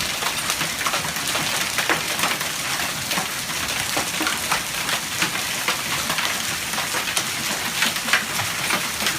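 Large hailstones pelting down in a severe storm: a dense steady hiss of falling ice and rain with many irregular sharp clicks and knocks as stones strike hard surfaces.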